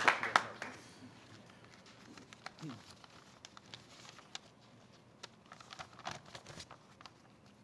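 Audience applause dying away in the first second, then a hushed room with scattered faint clicks and rustling.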